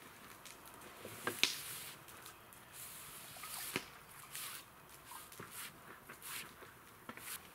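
Campfire burning birch wood, crackling and hissing, with scattered sharp pops, the loudest about a second and a half in and again near four seconds.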